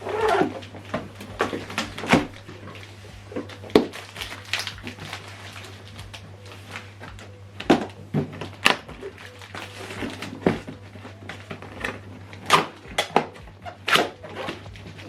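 Cardboard box and packaging being handled and opened: scattered knocks, taps and rustles, over a steady low hum.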